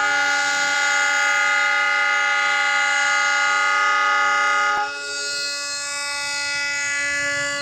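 Multi-tone air horn of a GE CM20EMP (CC206) diesel locomotive sounding one long, steady blast: the Indonesian railway's long Semboyan 35 horn signal. A little under five seconds in, the chord changes and drops slightly in level.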